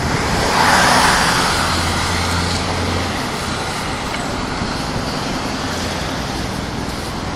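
Road traffic on a busy main road: a vehicle passes close by about a second in, followed by a steady low engine drone that fades after about three seconds, over a continuous traffic hiss.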